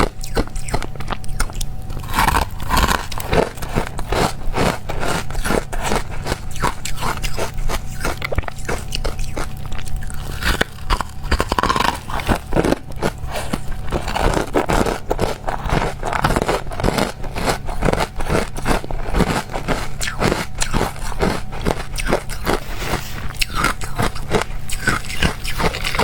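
Ice being bitten and chewed close to the microphone: a steady, dense run of loud, sharp crunches.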